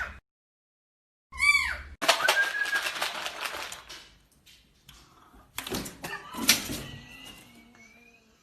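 A cat meows, with a short arched call at the start and another about a second and a half in. This is followed by a few seconds of scuffling, clattering noise and several sharp knocks near the end.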